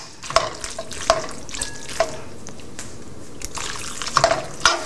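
Starchy pasta water pouring from a saucepan into a skillet of pasta, with scattered clicks of a utensil against the pan as the pasta is stirred.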